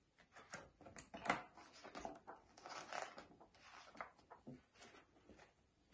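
Faint rustling of paper pages and soft taps as a picture book is handled and opened, the pages turned over by hand.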